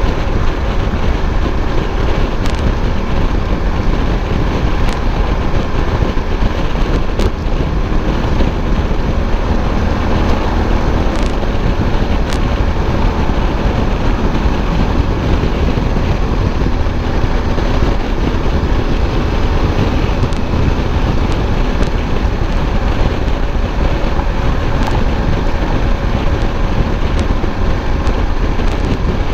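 Wind rushing over the microphone with the steady drone of a Suzuki V-Strom 1050's V-twin engine underneath, ridden at an even speed.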